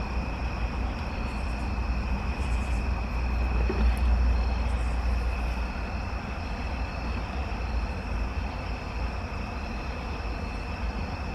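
Steady low rumble and hiss of a moving vehicle's road noise.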